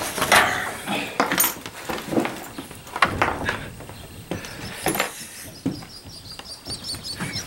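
Someone climbing a knotted rope up to a wooden platform: irregular knocks and scuffs of the rope and the climbing, several a second.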